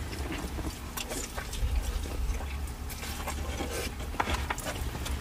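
Close-up chewing and wet mouth smacks and clicks from people eating a saucy birria burger, over a low steady hum.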